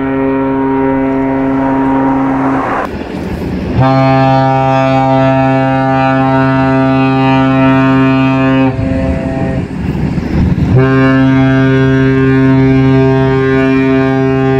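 Mogami-class frigate ship's horn sounding long, deep, steady blasts: one stops about three seconds in, a second lasts about five seconds, and a third begins about eleven seconds in and is still sounding at the end. Rushing noise fills the gaps between blasts.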